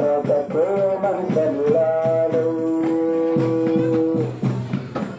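Islamic devotional song (shalawat) playing loudly: a singing voice with long held, wavering notes over percussion, one note held for nearly two seconds before it ends about four seconds in.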